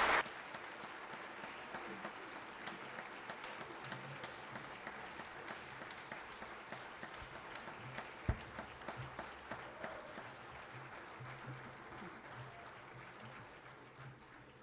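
Faint, scattered applause from a church congregation, with a low murmur of voices, dying away near the end. One thump about eight seconds in.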